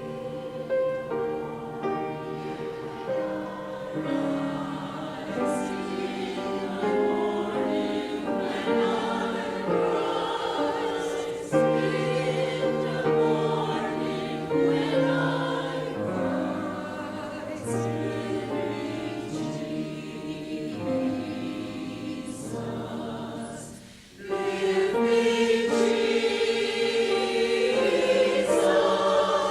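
A choir singing in sustained chords. There is a brief break about 24 seconds in, then the singing comes back louder.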